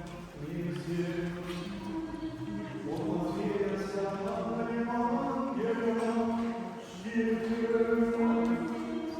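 A choir chanting slowly, several voices holding long notes and moving together from one pitch to the next.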